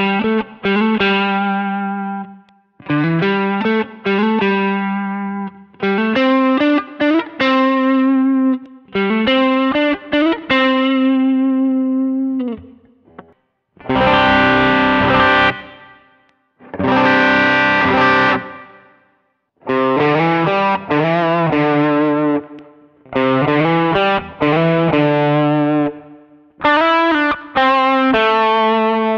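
Fender American Standard Stratocaster electric guitar played in short phrases of overdriven chords with brief gaps. It runs through a Fractal FX8 overdrive into a Maxz Direct Amp amp-simulator pedal and is recorded direct. It is switched from the neck pickup to the brighter bridge pickup about halfway through.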